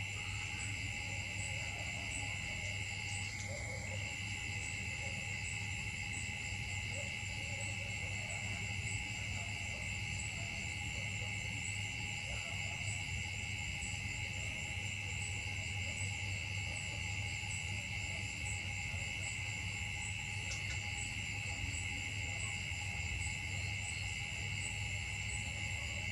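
Steady chorus of forest insects: continuous high-pitched droning at a couple of pitches, with a faster pulsing layer higher up, over a low background hum.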